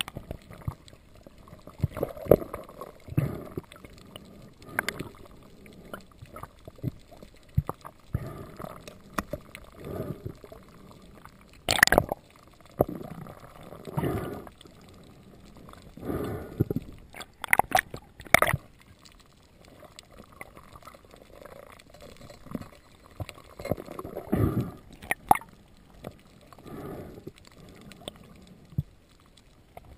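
Underwater sound picked up through an action camera's waterproof housing: irregular muffled knocks and rushes of water while a speared fish is handled on the spear shaft, with a few sharp clicks around the middle.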